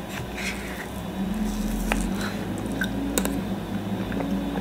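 A metal spoon scrapes and clicks in a tub of ice cream, with wet, squishy mouth sounds of eating, over a steady low hum.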